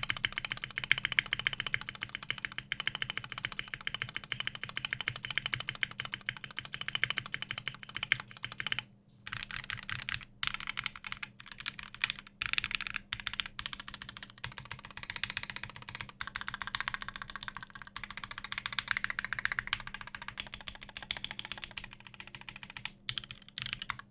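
Fast, continuous typing on a custom 60% mechanical keyboard with filmed Durock L2 switches on a carbon fiber plate, lubed Durock V2 stabilizers and pudding keycaps: a dense run of keystrokes with a couple of brief pauses near the middle.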